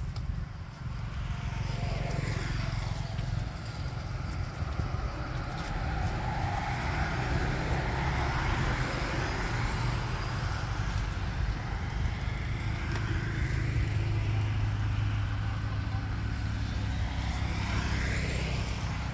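A road vehicle passing, its engine and tyre noise building over several seconds and then fading, over a steady low rumble.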